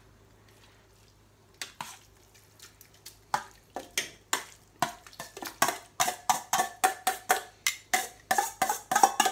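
Metal spoon scraping and knocking against a stainless steel bowl as shredded beef is scraped out into a pot. Short ringing clinks start about a second and a half in, then settle into about three a second and grow louder.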